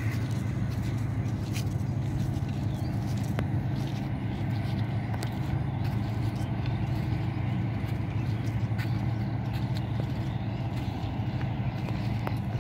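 Steady low drone of an engine running without change, with a few faint clicks over it.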